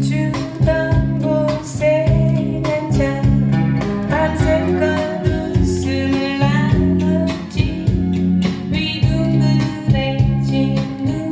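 A woman singing a slow blues song over guitar and bass, played back over a hi-fi system's tube amplifier and loudspeakers.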